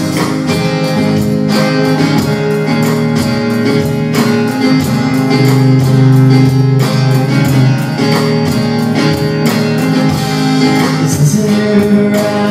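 Worship music playing: an instrumental stretch between sung lines, with guitar over held chords and a steady beat.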